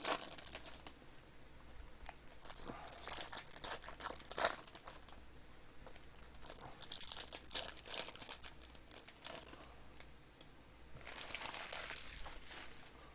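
Plastic wrapping on trading-card boxes and packs crinkling and tearing open by hand, in three main bursts of rustling.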